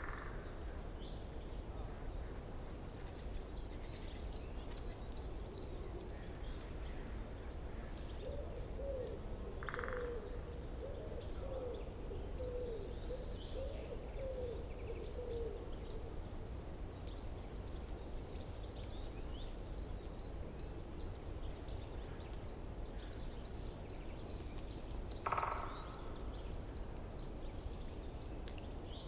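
Forest birdsong over a steady low rush of a forest stream. A bird repeats a rapid, high trilled phrase several times. In the middle a run of lower, hooting notes goes on for about seven seconds, and two short separate calls come in between.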